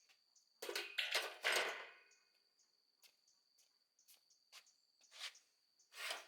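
Insects trilling steadily in the background, broken by a loud scraping rustle between about half a second and two seconds in and shorter scrapes or knocks near the end.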